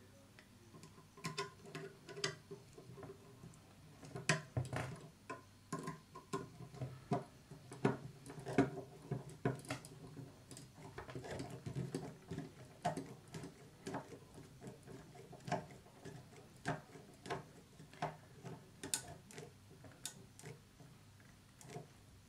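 A small screwdriver turning a tiny screw into a plastic model-truck chassis frame, heard as a run of faint, irregular clicks and ticks as the screw turns and the tool and parts are handled.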